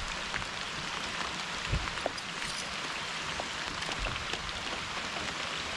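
Steady rain falling, with scattered close drops ticking and a low thump about a second and a half in.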